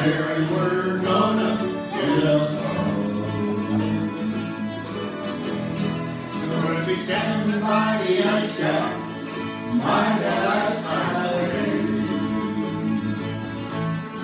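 Group of voices singing a lively song together, with acoustic guitar and other instruments playing along.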